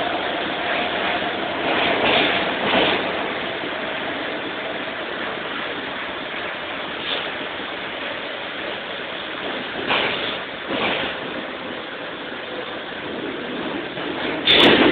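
Bucharest Metro IVA train heard from inside the car, running through the tunnel with a steady rumble. A motor whine fades over the first few seconds, and twice the wheels knock over rail joints in pairs of clacks less than a second apart.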